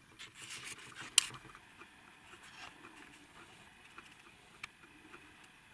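Camera handling noise: a brief rustle and one sharp click about a second in, then faint scattered ticks.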